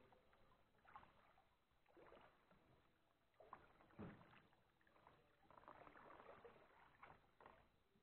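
Faint kayak paddle strokes: quiet splashes and drips as the paddle blades dip into the water every second or two, with a sharper knock about four seconds in.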